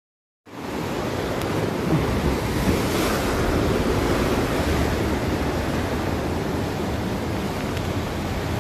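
Sea surf with wind buffeting the microphone: a steady, dense rush that starts abruptly about half a second in.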